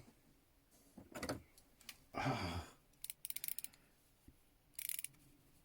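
Old metal hand tools being handled and rummaged through in a cardboard box: scattered rustles and clinks, with a quick run of small metallic clicks about three seconds in.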